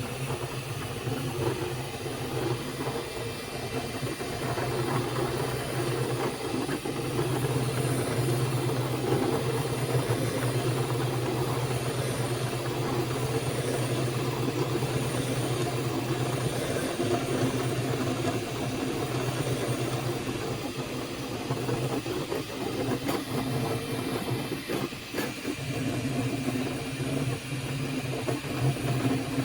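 Flashforge Adventurer 5M 3D printer running mid-print: a steady mechanical hum from its fans and motors, with a faint hiss.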